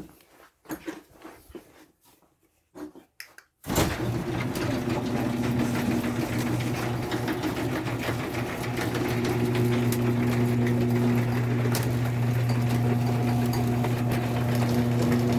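A few light clicks, then a garage door opener motor starts about four seconds in and runs with a steady hum as it drives the repaired door along its track.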